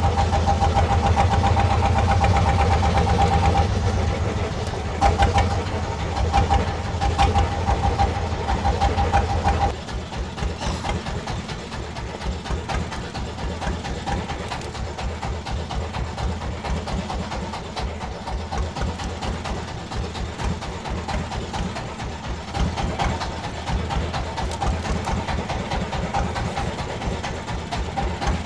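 Fishing boat's engine running steadily with a fast, even beat. It is louder for the first ten seconds or so, then drops to a lower, steady level.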